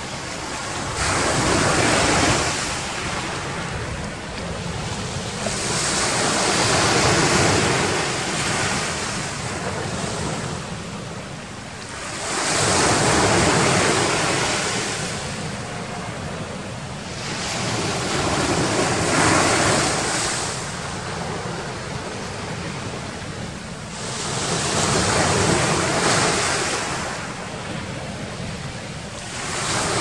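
Black Sea waves breaking on the shore, the surf swelling and fading about every six seconds.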